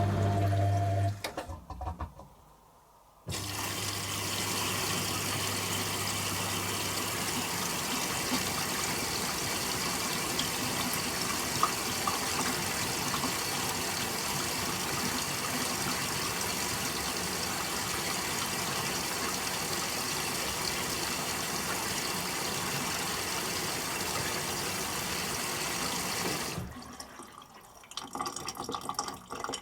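Candy Aquamatic 100F washing machine starting its final rinse. A steady motor hum, typical of the drain pump, stops about a second in. After a short pause, water rushes in through the inlet valve with an even hiss for about 23 seconds and cuts off near the end.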